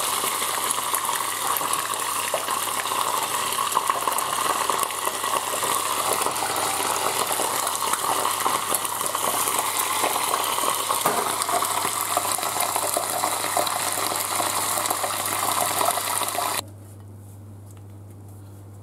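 Wood grubs deep-frying in a saucepan of hot vegetable oil: a steady, dense sizzle with fine crackling, which cuts off abruptly near the end, leaving only a low hum.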